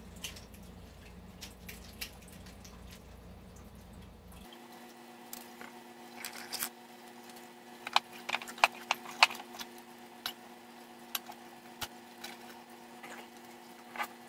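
Scattered small clicks and taps of small hardware being handled on a workbench: a set screw taken from a plastic parts organizer and fitted into a 3D-printed rotor. A quick run of four sharp clicks comes about eight seconds in.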